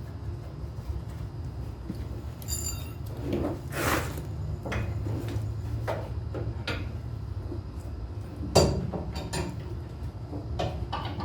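Hand tools clinking and knocking on metal, with a short ringing clank about two and a half seconds in and a sharper knock near the end, typical of a ratchet wrench and socket extension working on truck chassis bolts. A steady low hum lies underneath.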